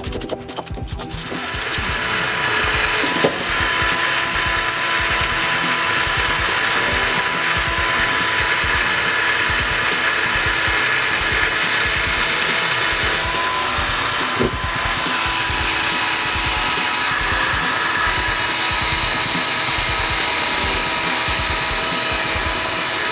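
A power tool running steadily with a high whine, over background music with a steady beat.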